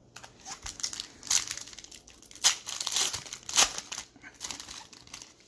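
Foil wrapper of a trading-card pack crinkling as it is torn open and handled, a run of dense crackles with a few sharper loud crinkles about two and a half and three and a half seconds in.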